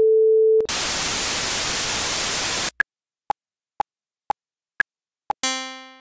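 Audacity's generated test sounds in turn: a steady pure tone cuts off about half a second in, followed by about two seconds of white noise. Next comes a click track of six evenly spaced clicks about half a second apart, and at the end a single synthesized plucked note that dies away.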